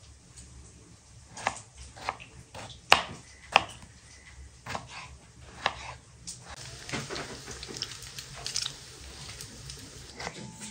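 Kitchen knife cutting tomatoes on a wooden cutting board: irregular knocks as the blade goes through and meets the board, a few louder than the rest.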